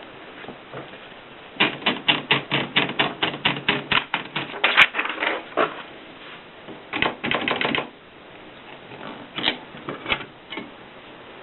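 Kolibri typewriter being typed on. A quick run of key strikes lasts about four seconds, a shorter burst follows a little later, and a few separate keystrokes come near the end.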